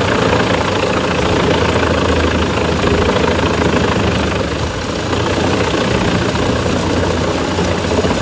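Heavy machine engine running steadily, a low drone under a loud, even mechanical noise.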